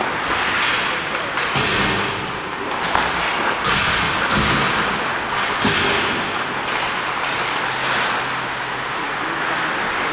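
Ice hockey play on the rink: skate blades scraping the ice, with a scatter of sharp clacks and thuds from sticks and puck.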